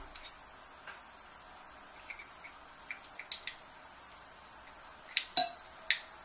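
Scattered small clicks and taps from handling a cat fountain's mini pump and its power cord, a few sharper clicks coming about five seconds in.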